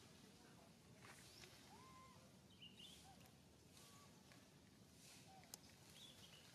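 Near silence: faint outdoor ambience with a few distant bird calls, short arching whistles and higher chirps spread through it, and one sharp click about five and a half seconds in.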